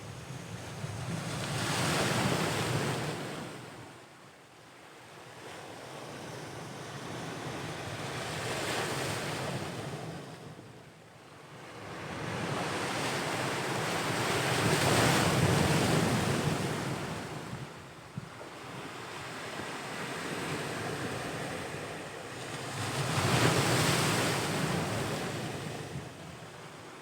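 Ocean waves breaking and washing on the shore, the surf swelling and fading in slow surges about every six to eight seconds, with wind on the microphone.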